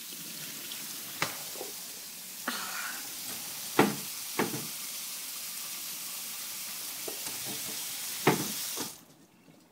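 Metal drawer pulls clacking against wooden kitchen drawer fronts as a baby grabs and tugs at them: a handful of sharp knocks. They sit over a steady hiss that cuts off suddenly near the end.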